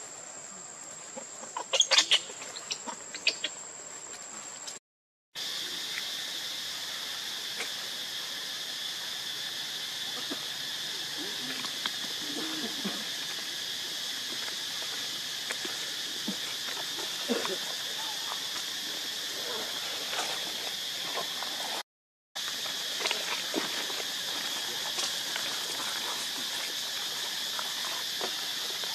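Outdoor forest ambience dominated by a steady high-pitched insect drone, with a few sharp clicks about two seconds in and faint short calls underneath. The sound cuts out to silence twice, briefly, at edits.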